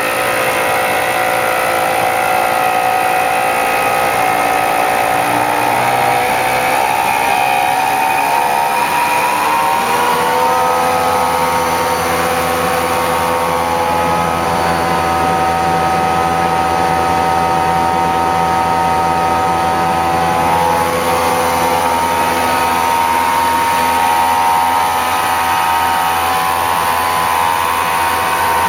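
Servo-driven label die-cutting and rewinding machine running, a steady mechanical whine made of several tones. About six seconds in, the pitch climbs over some four seconds as the machine speeds up, then holds steady at the higher speed.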